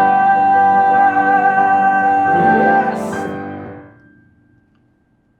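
A singer holds the final note of a song over piano accompaniment, the note wavering slightly. It ends about three seconds in with a brief hiss, and the music dies away to near silence.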